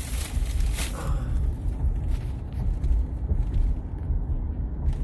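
Road and engine noise inside a moving vehicle's cabin: a steady low rumble, with a brief louder rush of hiss in the first second.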